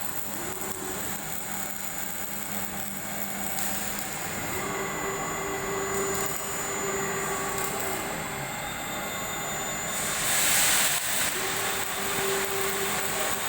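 CNC carving machine running, a steady whine of motor tones that drop out and come back as its axes start and stop, rising in pitch once about four seconds in. A brief loud hiss about ten seconds in.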